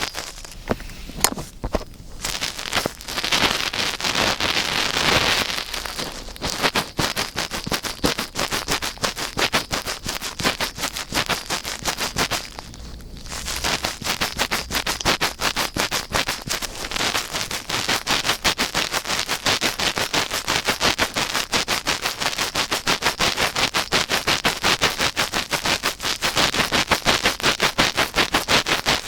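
Rapid scratching and rubbing strokes in the ear of a 3Dio binaural microphone, several strokes a second, steady and close, with a short pause about halfway through.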